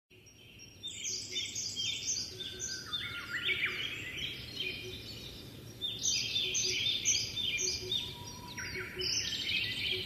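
Several small songbirds chirping and singing together: quick overlapping runs of short, falling notes, starting about a second in.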